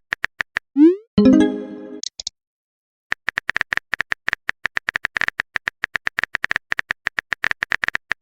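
Phone-chat sound effects: a few quick typing taps, an upward-sliding tone just under a second in, and then a short chime with a high blip. After that come about five seconds of rapid, uneven keyboard taps, which is the typical loop of a message arriving and a reply being typed.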